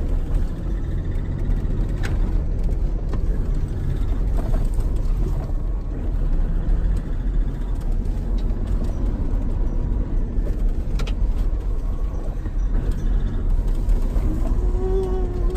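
Vehicle driving along a track, heard from on board: steady low engine and road rumble. Near the end, a short rising-then-falling tone.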